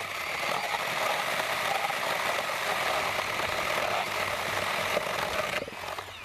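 Small battery-powered mini chainsaw cutting through a 2x6 board: a steady, dense chain-through-wood noise that stops briefly near the end.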